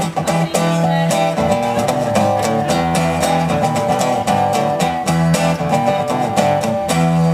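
Music: the instrumental introduction of a song, with guitar strummed to a steady beat.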